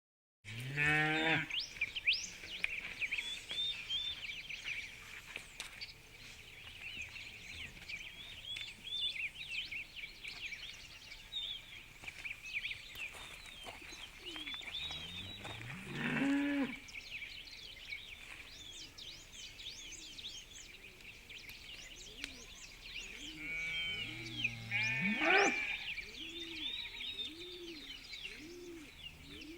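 Farmyard ambience: cattle mooing in long calls near the start and about halfway through, and sheep bleating in a cluster of short calls near the end. A steady bed of high chirping runs underneath throughout.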